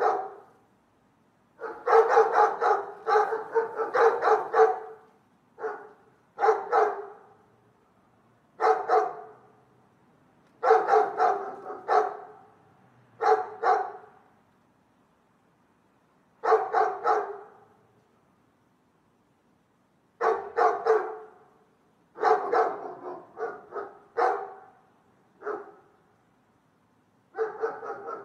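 A dog barking in bursts, sometimes a single bark and sometimes a quick run of several barks, with pauses of one to three seconds between them.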